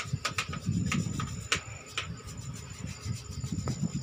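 Rubbing and scraping close to the microphone with a quick run of sharp clicks in the first two seconds, the sound of a handheld phone camera being handled. A faint steady high tone runs underneath.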